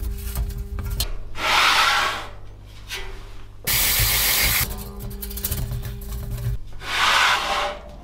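Microfiber cloth rubbing over a steel PC case panel, in wiping strokes that swell and fade, twice. About a second of louder hiss starts and stops abruptly near the middle.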